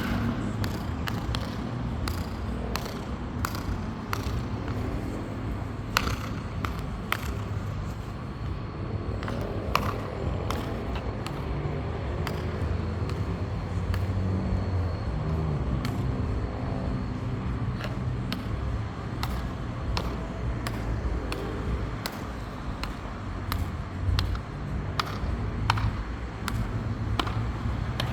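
Metal high heels clicking on a hard floor at a walking pace, about two sharp, echoing steps a second, with a steady low rumble underneath.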